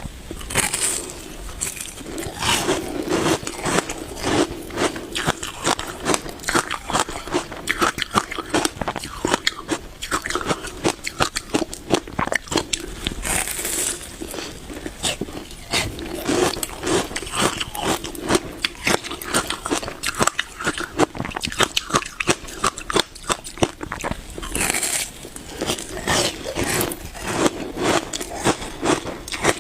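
Frozen passion fruit ice being bitten and chewed close to the microphone: a continuous run of rapid crunches, with a few sharper bites about a second in, around the middle and near the end.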